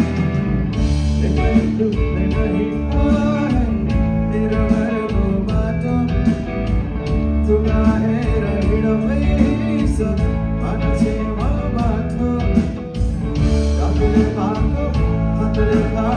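Live band playing amplified, with electric guitars over bass and a drum kit.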